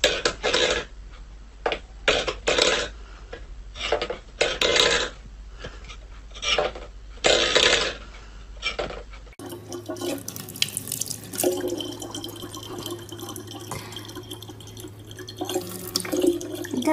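A metal pet bowl on a wooden floor, moved by a cat, giving short irregular scraping and clattering bursts for about nine seconds; then a thin stream of water running from a spout into a plastic bottle, a steady trickle.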